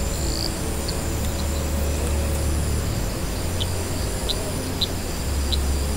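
Outdoor night ambience: a steady low rumble with about six short, high chirps scattered through it.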